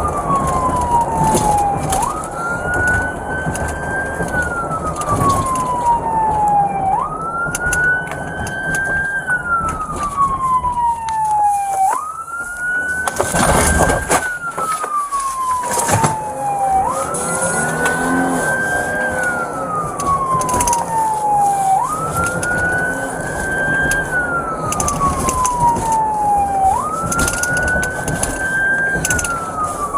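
Police car siren in wail mode, sweeping up and down about every five seconds, over the squad car's road and engine noise. A brief rush of noise cuts across it about halfway through.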